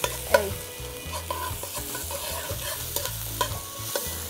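Metal spoon stirring and scraping food frying in hot oil in a metal pot, over a steady sizzle. The spoon knocks sharply against the pot several times, loudest near the start.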